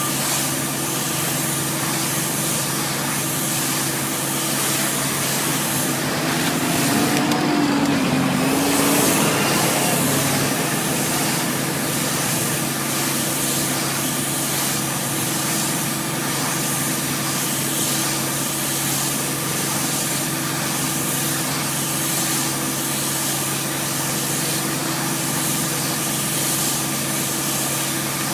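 Tractor engine running steadily while it powers a Metal-Fach Z560 stationary bale wrapper, which turns a round bale and winds stretch film around it, under a constant hiss. A wavering tone comes in and the sound grows slightly louder about seven to ten seconds in.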